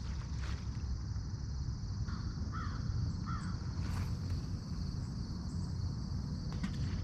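Steady insect chirring with a low background rumble, and a crow cawing a few times around the middle.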